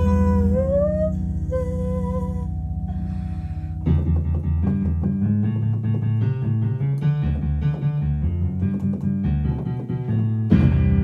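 Stage keyboard played with a piano sound: sustained low chords under a held, gliding sung note for the first couple of seconds, then from about four seconds in a fast, dense run of notes over a low bass line.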